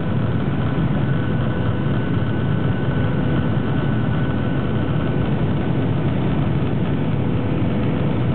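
Steady noise of a Boeing 737-800's CFM56 jet engines and rushing air heard inside the cabin during the landing approach, deep and even, with a few faint steady tones above it.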